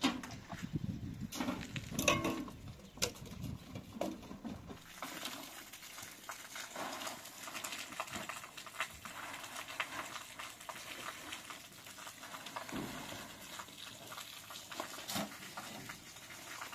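Rustling and clattering of plastic sacks and household goods being rummaged through in the loaded bed of a pickup truck, heard as scattered light clicks and knocks.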